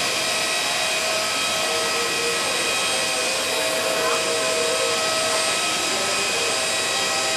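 Steady turbine whine over an even rushing hiss from a parked jet airliner at the stand, several high tones held without change.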